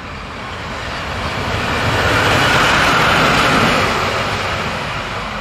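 ÖBB Siemens Vectron electric locomotive passing by, its noise swelling to a peak about halfway through, then fading away.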